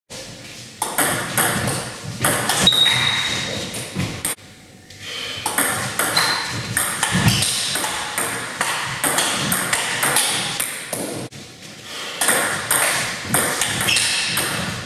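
Table tennis rally: the plastic ball clicking off rubber bats and the table in quick alternation. The clicks break off briefly a little after four seconds and again after eleven seconds, between points.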